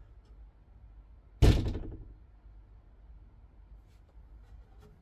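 A wooden cupboard door flung open with one loud bang about a second and a half in, ringing briefly as it dies away.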